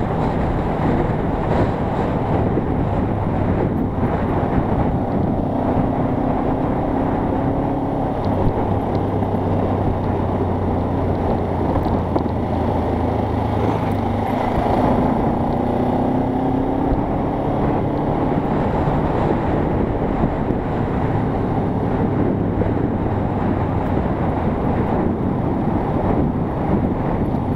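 Kawasaki KLE motorcycle engine running at a steady cruise, its pitch drifting up and down a little with speed, under a heavy rush of wind and road noise.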